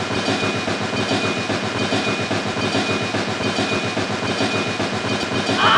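Small engine of a miniature tractor running steadily with a fast, even chugging rhythm. A brief gliding cry, like a voice, comes near the end.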